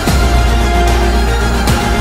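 Background soundtrack music with sustained tones over a heavy, steady bass, and a low beat at the start and again near the end.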